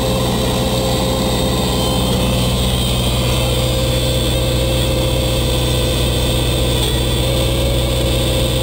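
Beech Sundowner's four-cylinder piston engine and propeller running steadily in cruise, a constant drone with a steady hum above it, heard inside the cabin.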